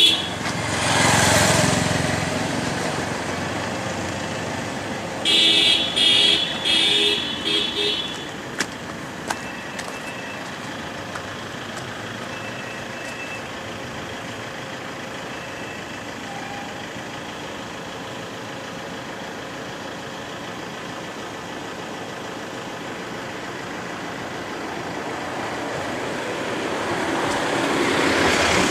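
Road traffic: a vehicle passes at the start and another swells past near the end over a steady road hum. A vehicle horn gives several short honks about five seconds in.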